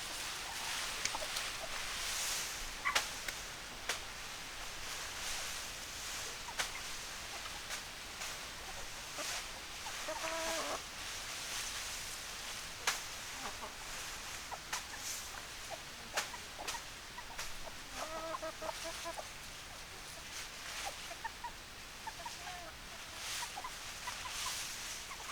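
Chickens clucking, with two longer pitched calls about ten and eighteen seconds in, over scattered sharp clicks and a steady high background hiss.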